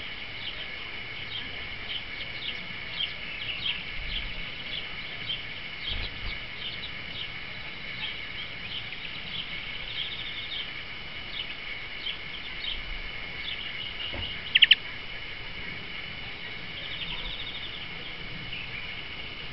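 Small songbirds chirping, short high notes about two or three a second over a steady high-pitched background. About three-quarters of the way through comes a loud, rapid rattle of notes, and near the end a quick trill.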